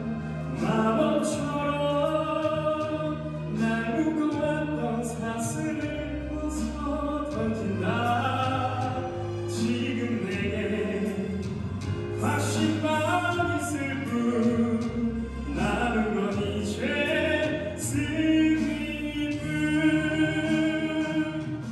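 A man singing a wedding congratulatory song into a microphone, with instrumental accompaniment.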